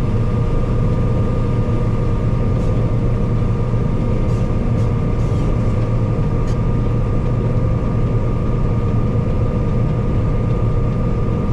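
Combine harvester running steadily while harvesting corn: a constant low engine drone with several steady whining tones from the threshing machinery above it.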